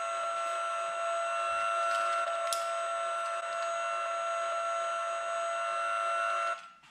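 Electronic sound effect from a battery-powered Hess toy truck: a steady, unwavering buzzing tone with overtones that cuts off suddenly near the end, as the toy's sound switches itself off.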